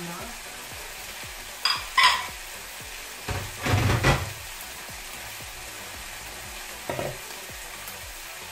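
Minced beef and pork sizzling steadily in a frying pan. Two sharp clinks about two seconds in and a louder clatter about four seconds in come from kitchenware being handled.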